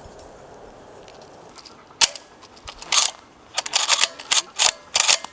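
Sharp metallic clicks and clacks of a shotgun being handled by hand, its action worked and shells taken out. The clicks start about two seconds in and come in an irregular run of a dozen or so, some close together.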